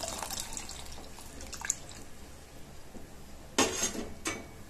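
Thick first-extract coconut milk poured from a bowl into a steel pot of boiling coconut milk, splashing and bubbling. Two short knocks near the end.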